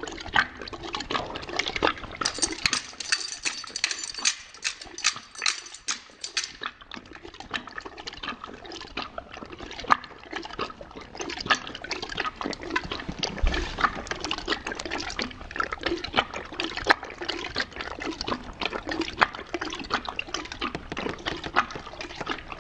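A dog lapping water from a stainless steel bowl: a steady run of quick, irregular wet laps and splashes against the metal.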